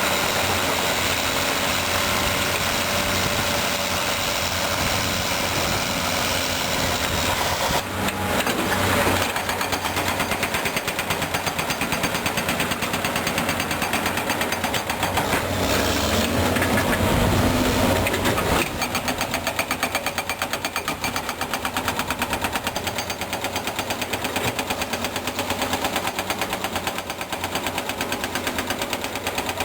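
Caterpillar D6R bulldozer working: its diesel engine runs under load with a rapid, steady clatter. The sound shifts about eight seconds in, and a deeper surge comes a little past halfway.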